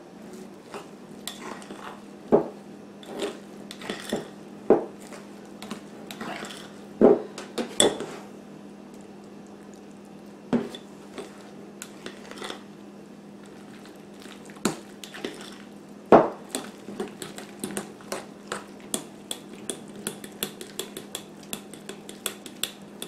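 Metal fork clinking and scraping against a glass mixing bowl while stirring buttermilk into wet biscuit dough. The taps are irregular at first, then come quicker, about two or three a second, over the last several seconds.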